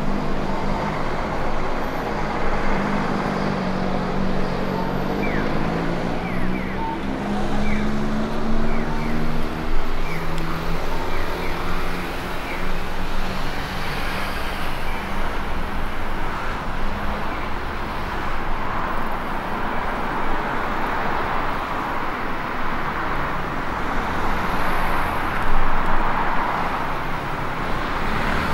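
City road traffic: motor vehicles running past, their engine tones rising and falling over a steady roadway hum.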